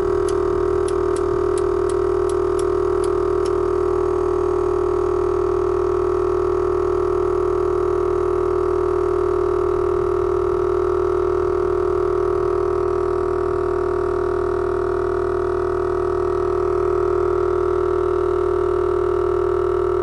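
12-volt air-suspension compressor running with a steady, even drone as it charges the air tank up to full pressure after the ignition is switched on.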